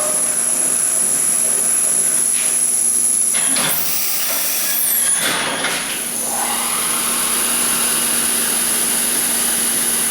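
EMCO Mill E900 CNC milling machine's spindle running its warm-up cycle, a steady high whine over a low hum. Around four to five seconds in there is a burst of noise and the whine sweeps down, then holds steady at a new pitch as the spindle speed changes.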